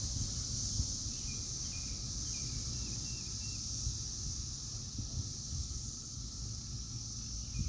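A cicada chorus droning steadily in one high band. A bird chirps a few short notes about a second in, and a low rumble runs underneath.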